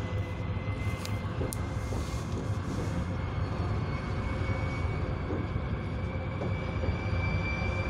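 TEP70 diesel locomotive's 16-cylinder engine working hard as the train accelerates up a grade, heard from a passenger carriage over the steady rumble of the wheels on the rails. A faint whine creeps up in pitch as speed builds, and there are two short clicks about a second in.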